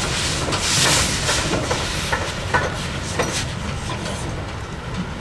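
Steam locomotive moving slowly, with a few loud hissing puffs of steam in the first two seconds and weaker ones after, over a steady low rumble and a few sharp metallic clanks.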